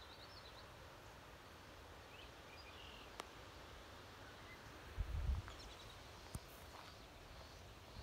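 Faint outdoor ambience with a few brief, high bird chirps, two sharp clicks, and a short low thump about five seconds in.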